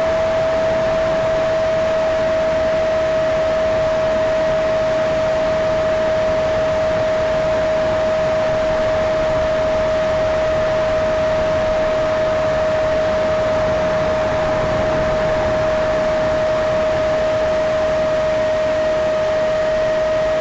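Electric ducted fan of a Freewing F-35 RC jet, recorded from onboard, running at steady power in flight: one unbroken, even whine over a rush of air noise.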